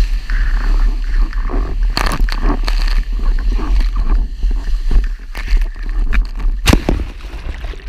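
Heavy wind buffeting the microphone of a rig-mounted action camera, over the rushing and slapping of water as a windsurf board planes across chop, with irregular sharp splashes of spray.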